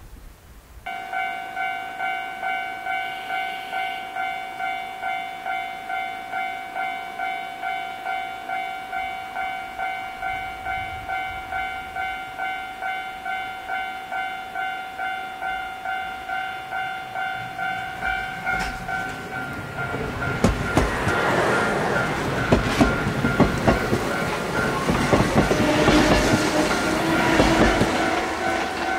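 A level crossing warning bell starts about a second in, ringing steadily about twice a second. From about 19 seconds a Yoro Railway electric train runs past, its wheels rumbling and clacking over the rail joints and nearly drowning the bell, which is heard again near the end.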